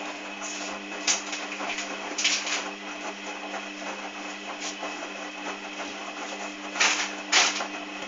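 Hoover Dynamic front-loading washing machine's drum turning with a steady motor hum while the wet laundry tumbles, with several louder swishes and thumps of the load dropping, about a second in, around two seconds in and twice near the end. This is the final-spin stage with a load that is very unbalanced.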